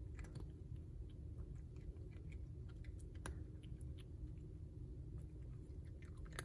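Cat chewing dry kibble: small, irregular crunching clicks, with one sharper click near the end.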